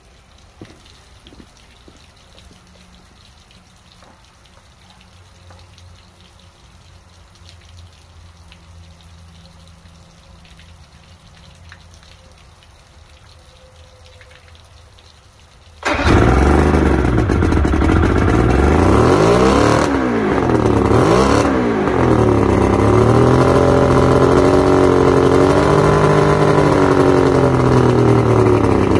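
Inline-six outboard motor, running on flush water, starts up a little over halfway through. It revs up and down twice, then settles into a steady run. Before it starts there is only faint splashing of flush water. The engine has just tested at about 145 psi on all six cylinders, which the owner takes for a strong engine.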